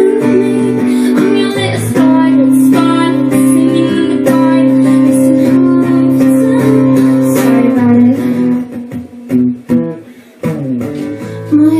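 Acoustic guitar strummed as live accompaniment, with a woman singing over parts of it. About eight seconds in the playing thins to a few sparse notes, then full strumming resumes near the end.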